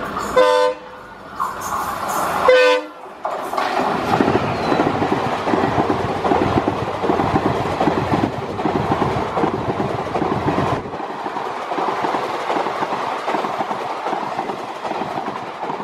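A diesel train horn sounds two short blasts, then a train on the next track rushes past close by with a loud rumble and rapid clickety-clack of wheels over rail joints. Near the middle the deep rumble drops away, leaving a lighter rushing and rattling as the coaches keep going by. It is heard from the open door of a moving train.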